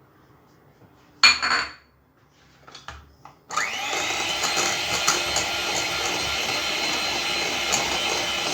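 Electric kitchen mixer starting up about three and a half seconds in, its motor rising in pitch as it spins up and then running steadily as it beats apple and lemon into the cake batter. About a second in there is a brief loud clatter.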